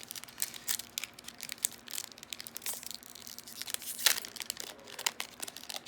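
Trading-card packaging being handled and torn open: foil booster-pack wrappers and box packaging crinkling, with irregular crackles and clicks, the sharpest about four seconds in.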